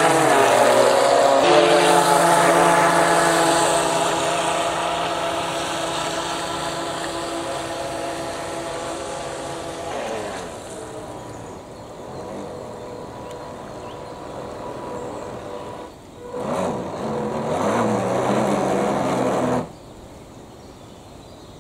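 Twin electric motors and propellers of an RC model boat (Heng Long Atlantic Yacht) whining at speed, dropping in pitch and fading about halfway through as the boat slows. Near the end the motors whine again for about three seconds, running in reverse to stop the boat, then cut off suddenly.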